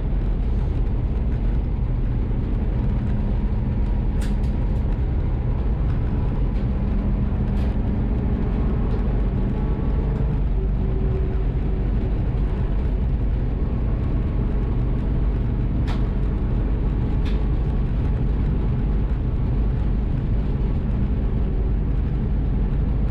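A 1963 Volkswagen split-window bus driving along, its air-cooled flat-four engine running steadily with road noise, with a few brief sharp clicks or rattles along the way.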